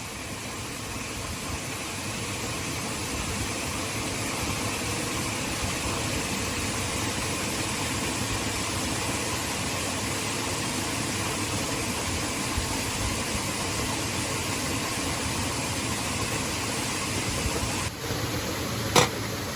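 Heavy rain falling steadily as an even hiss, growing louder over the first few seconds. A single sharp knock comes near the end.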